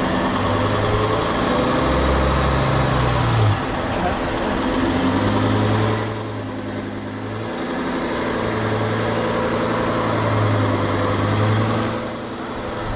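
Volkswagen Touareg's V10 TDI diesel engine revving hard under load in long surges, easing off briefly around six seconds in and again near the end. The car is clawing up a deep muddy rut with its front locking differential engaged.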